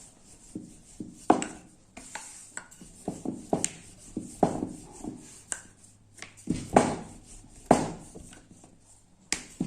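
Irregular sharp taps and knocks of kitchen utensils on a work surface as dough is divided into small portions, the loudest about a second in and twice more near the end.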